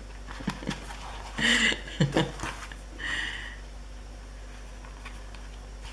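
Sheets of scrapbook paper being handled and pressed on a craft table: a few light taps and rustles, with a short breathy sound from the crafter about one and a half seconds in.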